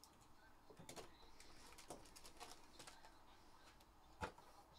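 Faint handling noises of a cardboard trading card box and its wrapped pack being opened: soft rustles and light taps, with one sharper tap about four seconds in.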